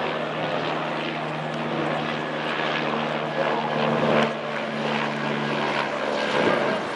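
A steady engine drone over a rushing noise. Its low hum fades out near the end.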